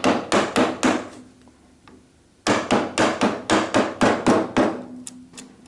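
Chisel being struck with light, quick taps to set it into a marked line in wood: a run of about five taps, a pause of over a second, then about ten more, and two faint taps near the end.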